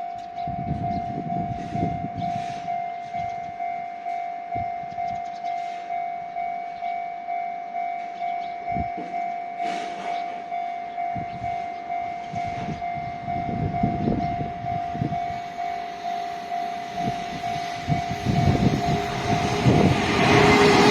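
Japanese level-crossing warning bell ringing in an even, repeated ding at about one and a half strikes a second. From about three-quarters of the way in, a freight train's rumble grows louder as it approaches the crossing.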